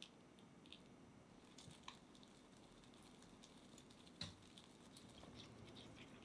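Faint clicks and soft taps of a silicone-coated whisk stirring milk into cocoa and coffee powder in a glass bowl, working it into a thick paste, with one sharper tap on the glass about four seconds in.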